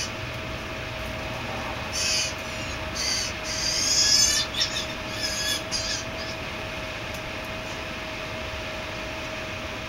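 Blue jay fledglings calling: a cluster of short, harsh calls between about two and six seconds in, over a steady faint hum.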